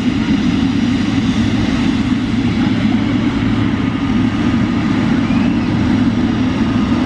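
Boeing 737-800 jet engines, a loud steady rumble.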